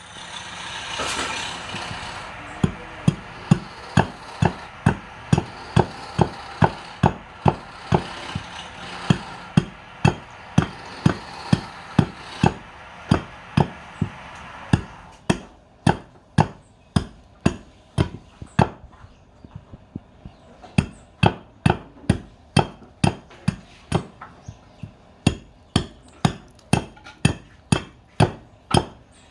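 Sharp knocks repeating evenly about twice a second, over a hiss that falls away about halfway through.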